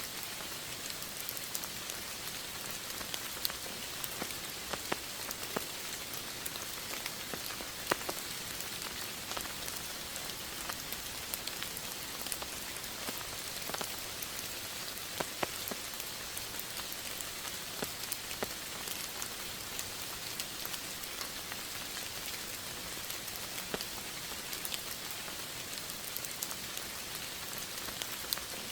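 Steady rain: an even hiss with single drops ticking and pattering at random throughout.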